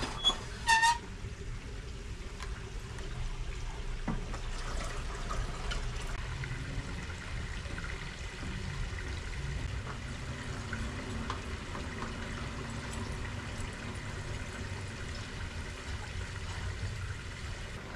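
A steady trickle of running water. About a second in there are two short, high pitched chirps.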